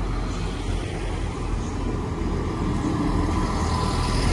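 Transport for Wales diesel multiple unit moving slowly along the platform: a steady low diesel engine drone with wheel-on-rail noise, growing a little louder near the end.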